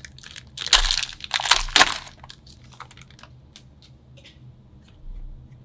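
Foil wrapper of a Topps Tier 1 trading-card pack torn open and crinkled: a burst of crackling lasting about a second and a half, then a few faint ticks.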